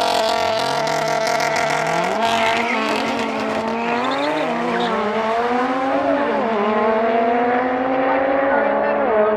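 Two cars accelerating hard off a drag-strip start line, side by side. Their engines climb in pitch, with a drop at each upshift, and the sound dulls as they pull away down the track.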